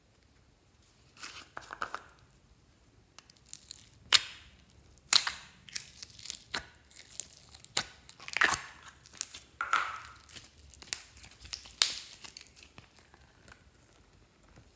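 Hands working glossy slime, giving an irregular series of sharp, wet crackles and pops that start about a second in and die away near the end.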